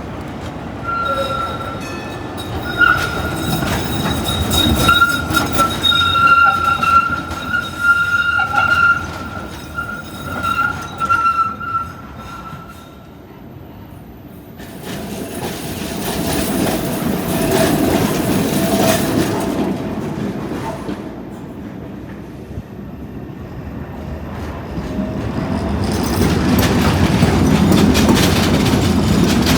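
Street trams running on rails, with steel wheels squealing in a high, steady tone for about the first ten seconds. Then another tram rumbles past around the middle, and the rail noise swells again near the end.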